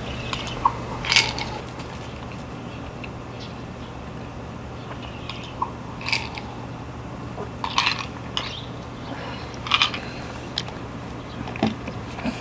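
Kaninchen dachshund crunching dry food: short, irregular crunches every second or two, the loudest about a second in, over a steady low hum.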